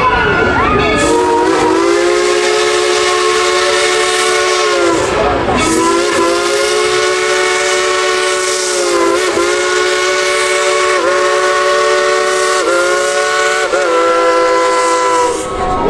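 Coal-fired steam locomotive's whistle blowing several notes together: a blast of about four seconds starting about a second in, then after a brief break a long blast of about ten seconds whose pitch sags for a moment several times before it stops near the end.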